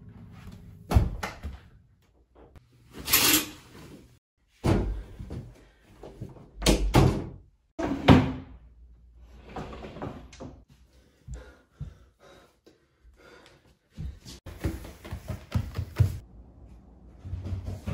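Doors being handled in a house: a series of separate knocks, thuds and scrapes, including a louvered closet door being opened about halfway through. Near the end comes a quick run of thumps.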